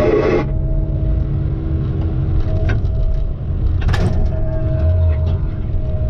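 Heavy vehicle's engine running with a steady low rumble and a faint steady hum over it, with a sharp click about three seconds in and another about four seconds in.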